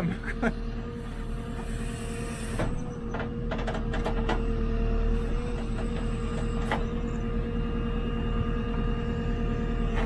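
JCB 3CX backhoe loader running steadily as the backhoe arm works, a diesel rumble under a steady whine. A few sharp clicks and knocks come between about three and four and a half seconds in, and one more around seven seconds.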